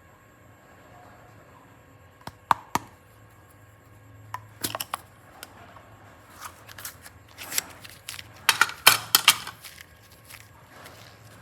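Handling sounds of slime and clay craft work: two sharp clicks, then clusters of short crackling and snapping sounds, busiest about eight to nine seconds in.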